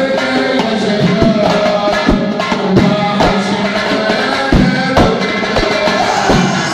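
Tunisian Sulamiya Sufi chant: male voices singing with a large bendir frame drum and a smaller frame drum beating the rhythm. The drum strokes are sharp and land irregularly under the held sung notes.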